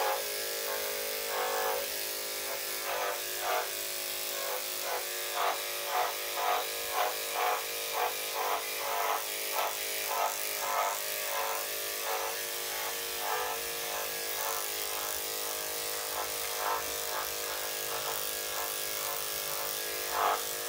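Electric dog-grooming clippers running with a steady hum, shaving a wet coat. The sound swells in short louder pulses, about two a second, as the blade is worked through the hair.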